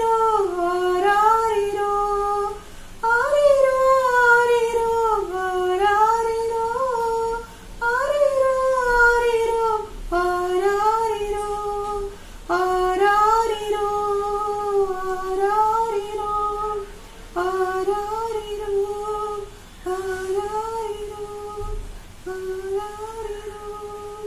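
A woman singing solo and unaccompanied, in short melodic phrases separated by brief breaths.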